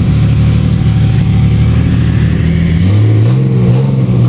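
A vehicle engine running close by, a steady low hum that shifts in pitch a little about three seconds in.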